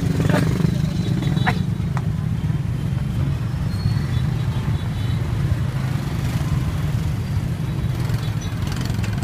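Busy street traffic, mostly motorbike engines running at low speed in a congested road as a steady low rumble, with voices of a crowd and a few short sharp sounds in the first two seconds.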